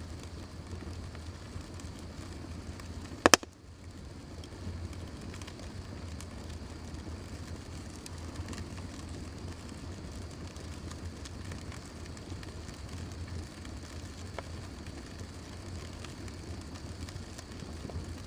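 Fire burning with a steady hiss and low rumble and scattered faint crackles. One loud, sharp pop comes about three seconds in.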